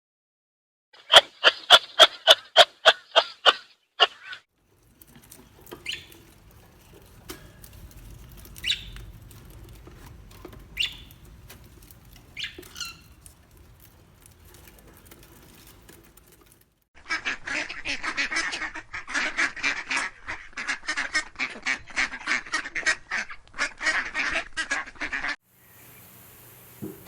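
Waterfowl calling. A quick run of about eight loud calls comes first, then a few scattered calls, then a dense, overlapping chatter of many birds from a flock.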